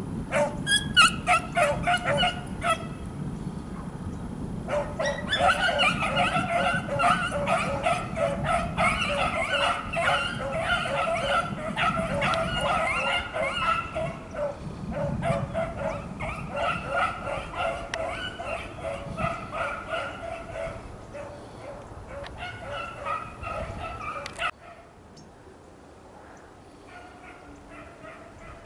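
A pack of beagles baying while trailing a rabbit's scent: a chorus of rapid, repeated yelping bays over a low rumble. About three-quarters of the way through, the sound drops off sharply, leaving only faint bays.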